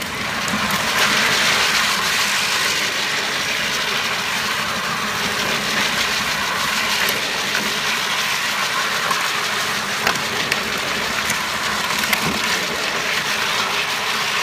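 Peg Perego Gaucho 24-volt ride-on toy jeep driving donuts on asphalt: its hard plastic wheels rumble and scrape over the road in a steady rattling roar, with a low whine from its electric drive beneath and a few light clicks.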